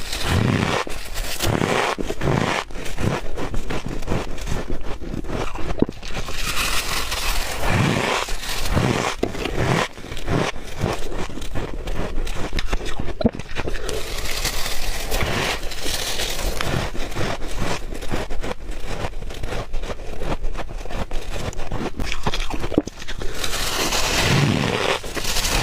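Close-miked chewing of soft white ice: a dense, continuous crunching crackle with repeated dull thuds of the jaw biting down.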